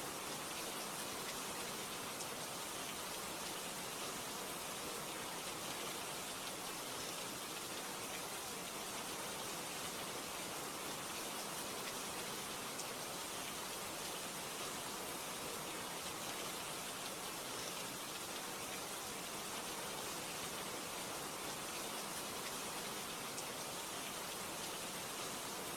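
Steady rain, an even rushing noise that does not change.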